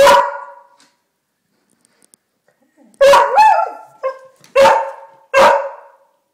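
Beagle barking: one loud bark at the start, then after a pause of about two and a half seconds a run of four barks in quick succession, the first of them a little drawn out.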